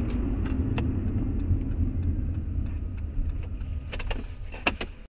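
A car driving, with a steady low rumble of engine and road noise. Scattered light clicks and rattles run through it, with a few sharper knocks about four seconds in.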